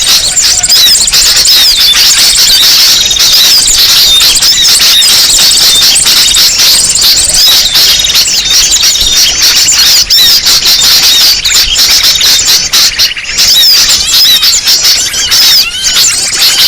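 Lure recording of many small birds calling at once: a loud, crowded chorus of quick high chirps and twitters that overlap without a break, the kind of noisy flock sound played to draw small birds in for trapping.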